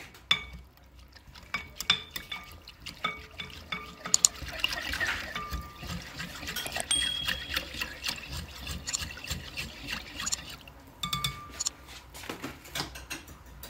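Wire whisk beating cornstarch into water in a glass bowl: liquid sloshing, with quick clicks of the wire against the glass.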